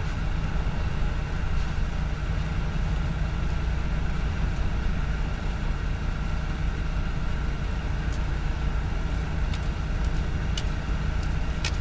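Parked vehicle's engine idling steadily, a constant low hum, with a few faint ticks near the end.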